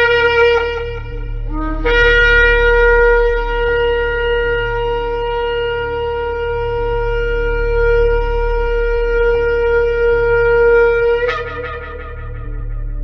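Shofar blown in one long, steady blast of about nine seconds, after a short note and a brief low starting note. Near the end it breaks upward in pitch and fades away, over a steady low hum.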